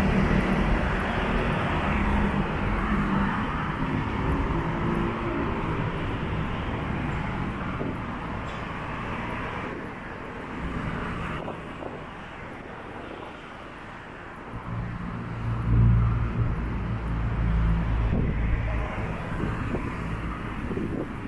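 City street traffic on a wide multi-lane avenue: cars passing with engine and tyre noise rising and fading. Late on, a louder, low-pitched vehicle passes close by.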